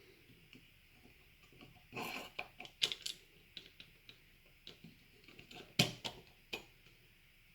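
Small plastic parts of an opened gel blaster gearbox being handled, giving a scattered series of light clicks and taps, about two seconds in until just before the end, with two louder knocks.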